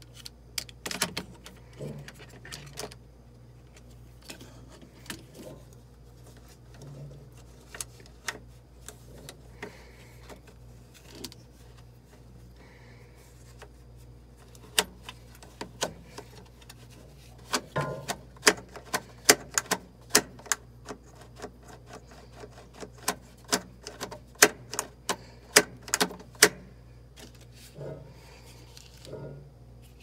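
Sharp, irregular clicks and clacks of the plastic shift coupling (splutch) and shifter parts of a top-load washer being worked by hand on the splined drive shaft. The clicks are sparse at first and come in quick clusters in the second half.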